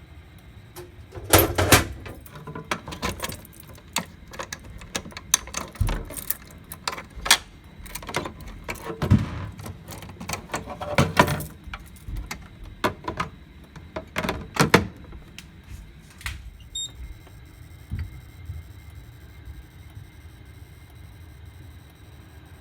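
Irregular clicks, knocks and rattles of hands handling equipment, densest in the first fifteen seconds, then only a faint steady hum.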